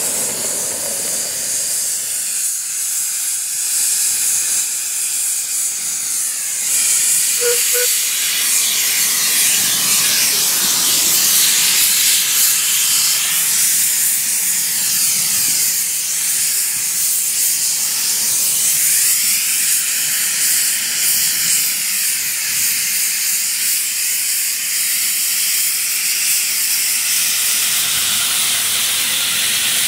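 Steady hiss of steam from a 1.5-inch-scale live steam locomotive, growing louder about seven seconds in.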